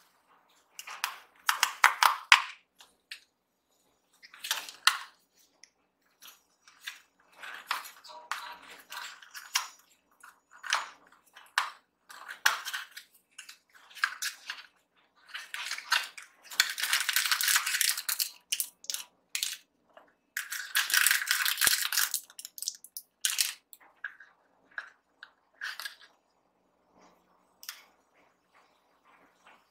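Packaging being handled and opened by hand: a small cardboard box and its foil inner packet rustling and crinkling in irregular bursts, with two longer spells of crinkling about 17 and 21 seconds in, and light clicks and taps of paper and plastic between them.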